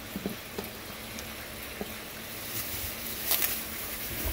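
Knife cutting a green bell pepper on a wooden cutting board: a few light taps and crunches, then a louder brief clatter about three seconds in, over a steady background hiss.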